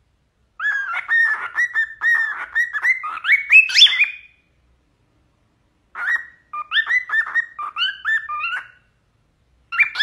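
Male cockatiel whistling its song in two phrases of quick, repeated whistled notes. The first phrase ends in notes climbing higher, and another phrase starts near the end.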